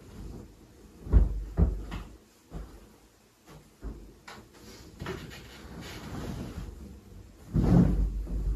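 Bedding being handled: a few soft knocks about a second in as folded linen is put away on a shelf, cloth rustling, then near the end a loud whoosh of air as a blanket is shaken out close to the microphone.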